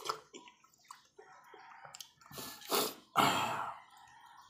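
Noisy slurping of ramyun noodles and broth: a few short wet sucking slurps, with the longest and loudest a little after three seconds in.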